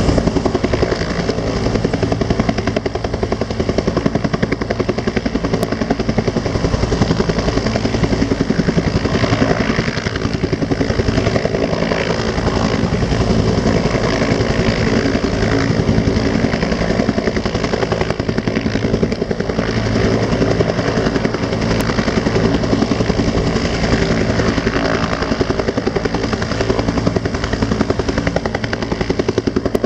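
Rescue helicopter close by, its rotor beating rapidly and steadily.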